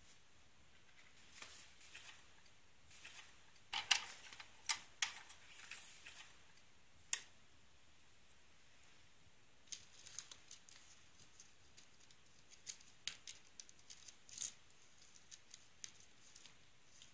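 A kitten batting a plastic ballpoint pen across the floor: scattered light clicks and clatters, with a few louder knocks a few seconds in and a run of quick, lighter ticks later on.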